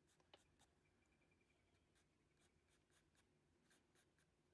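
Very faint pencil strokes on paper: a string of short, irregularly spaced scratches as feather-texture lines are drawn.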